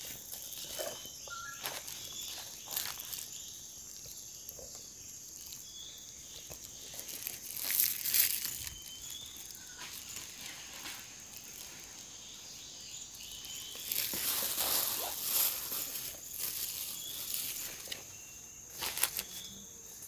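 Forest ambience: a steady high-pitched insect drone with short, repeated bird chirps, and footsteps rustling through leaf litter and undergrowth, loudest about eight seconds in and again from about fourteen to sixteen seconds in.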